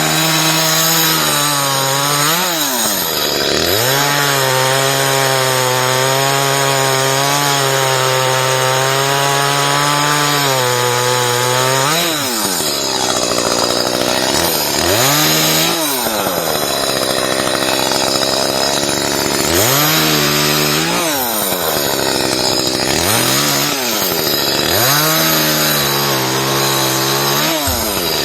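Gas chainsaw running at high revs and cutting branches, the engine pitch sagging under load and climbing back again several times. The chain is dull, hand-sharpened about as far as it will go.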